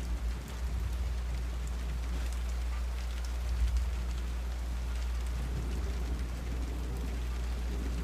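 Rain ambience: steady rain falling, with a constant low rumble underneath.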